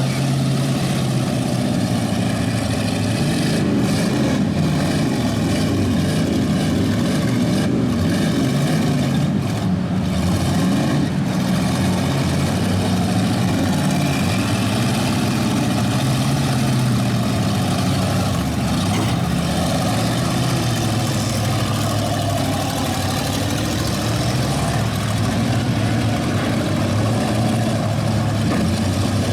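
Stock demolition derby cars' engines running and revving, their pitch rising and falling.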